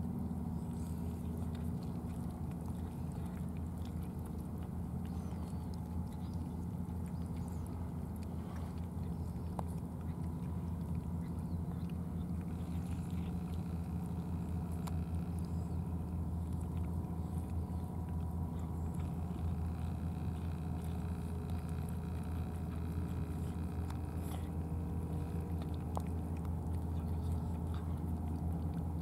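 Cats chewing wet cat food, with small scattered wet clicks, over a steady low hum.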